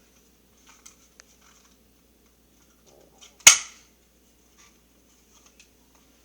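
A single sharp, loud click about three and a half seconds in, with a short ringing tail, among a few faint ticks.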